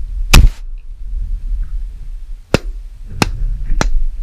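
A shotgun shot about half a second in, the loudest sound, followed by three sharp clicks in the second half, over a steady low wind rumble on the microphone.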